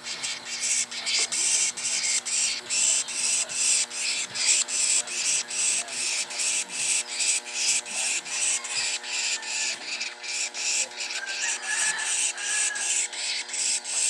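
A high-pitched rasping pulse repeating steadily about three to four times a second, under a faint steady hum.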